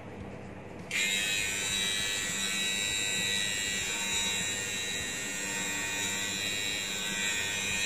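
Corded Wahl electric hair clipper switched on about a second in and running with a steady buzz.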